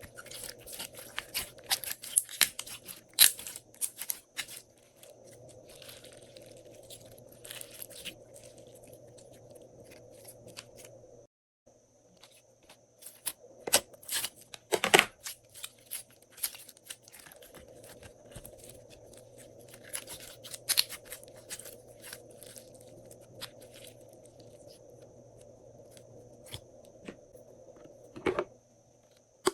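Glossy slime being squished, stretched and pressed by hand, giving clusters of sharp clicks, pops and crackles in bursts, over a faint steady hum.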